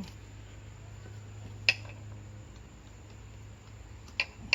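Metal hand tools clicking against each other as a spark-plug socket, extension and wrench are worked in the engine bay: one sharp click about one and a half seconds in and a few more near the end, over a steady low hum.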